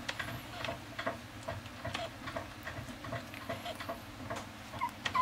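A small puppy whining briefly near the end, over irregular light clicks and taps.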